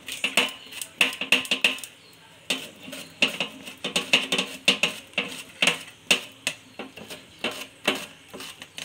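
Raw banana being pushed back and forth across the slicing blade of a stainless steel grater, cutting round chips: quick repeated rasping, clicking strokes, about two to three a second, with a short pause about two seconds in.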